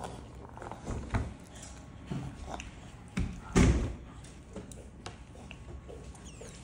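A spoon knocking and scraping against a plastic plate and the tabletop as a toddler cuts into and scoops cake: scattered light taps, with one heavier thump a little past halfway.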